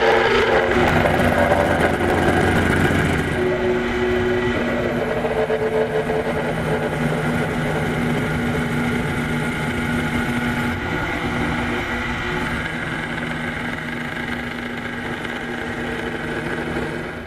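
A workshop machine's motor running steadily, with a mix of held tones that shift now and then as if under changing load, cutting off abruptly at the end.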